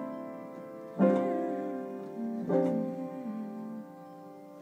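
Piano chords played slowly: one struck about a second in and another near the middle, each left to ring and fade. The playing goes back and forth between the same chord shapes.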